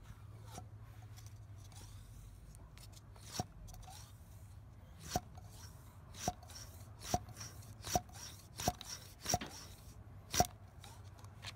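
Plastic syringe pumped to blow air into a scooter's final-drive filler hole, forcing the leftover gear oil out: a run of sharp clicks, about one a second, starting a few seconds in and getting louder.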